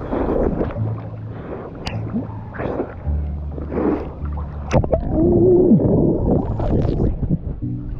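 Pond water splashing and sloshing around an action camera held at the surface as a swimmer moves through it, with sharp splashes against the lens. About five seconds in the camera goes under and the sound turns muffled, with underwater gurgling.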